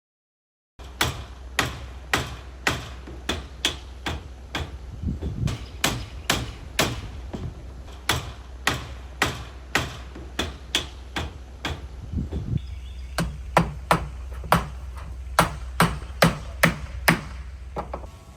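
Hand hammer driving nails, about two sharp blows a second with a few short pauses, over a steady low hum.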